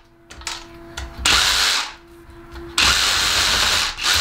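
Ryobi cordless one-handed reciprocating saw trimming a thin branch in short bursts of cutting: the first about a second in, then two more close together near the end.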